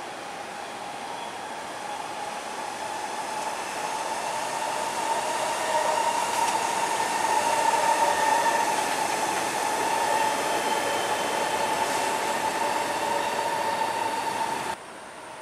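Singapore MRT electric train passing on an elevated track, growing louder to a peak about halfway through. A steady whine rides over the running noise. The sound cuts off suddenly just before the end.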